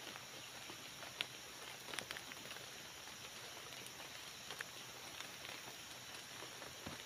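Faint, steady forest background hiss, with a few small sharp clicks and light rustles as hands work a snare cord; the sharpest click comes about a second in.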